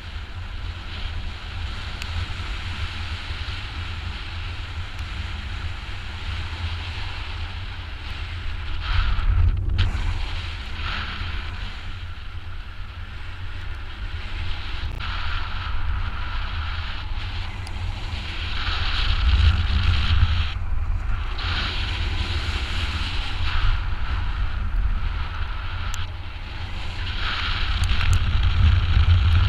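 Wind buffeting a GoPro HERO4 microphone in paraglider flight: a steady low rumble with a hiss above it, swelling in gusts about nine, twenty and twenty-eight seconds in.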